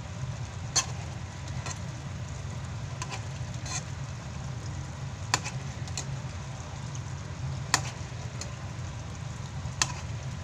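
A spoon knocking and scraping against a pan of chicken cooking in turmeric adobo sauce: several sharp clicks spread out, over sizzling and a steady low hum.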